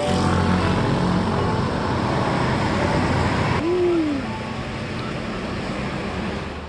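Steady rush of roadside traffic noise on a phone microphone, which cuts about three and a half seconds in to a quieter background murmur with one short rising-and-falling tone.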